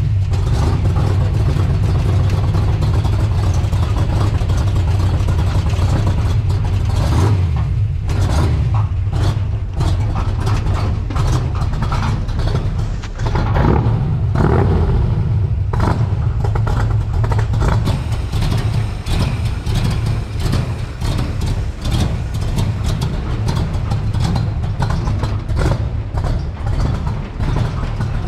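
The 1951 International rat rod's cammed engine running, with the throttle opened and closed once around the middle so the pitch rises and falls.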